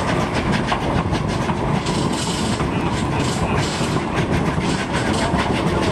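Narrow-gauge railroad cars rolling along the track, heard from an open-air car: a steady rumble of wheels on rail with rapid clicking and rattling.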